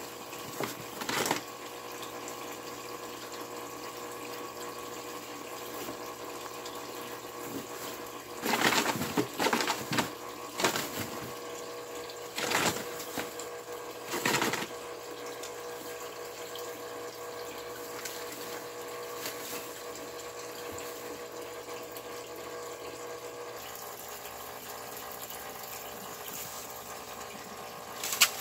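Several short bursts of scratching and rustling as a rabbit digs in a cardboard box of hay and shredded paper, most of them in the middle third, over a steady mechanical hum.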